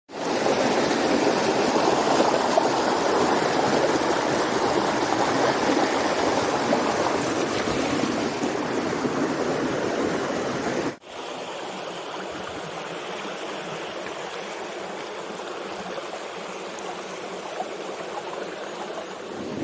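Flowing stream water rushing steadily. It drops abruptly to a quieter rush about eleven seconds in.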